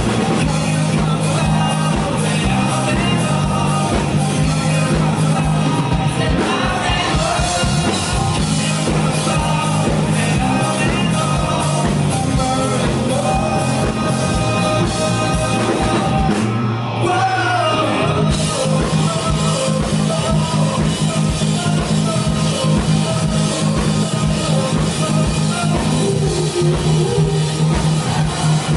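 Rock band playing live with singing over drums, bass and guitars. About 17 s in, the bass and cymbals drop out for a moment before the band comes back in.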